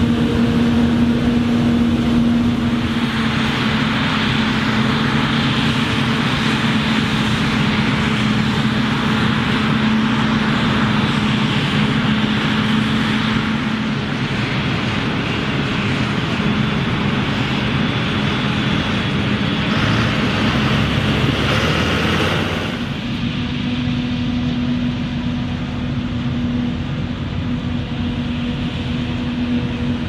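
Forage harvester and tractor engines running steadily under load, with the dense hiss of chopped maize being thrown through the harvester's spout into the trailer. The sound changes abruptly about three-quarters through: the hiss drops away and only the steady engine hum is left.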